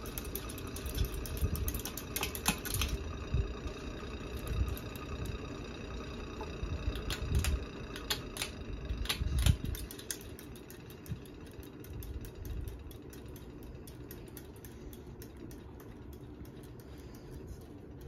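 Hampton Bay Genoa ceiling fan running: a steady motor hum with the rush of the spinning blades, broken by scattered sharp clicks and low thumps as a hand handles the motor housing, mostly in the first half.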